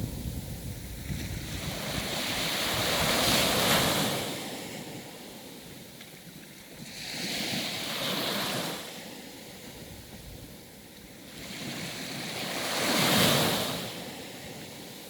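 Sea waves breaking and washing up the shore, three swells about five seconds apart, each rising to a rush and falling away, with some wind on the microphone.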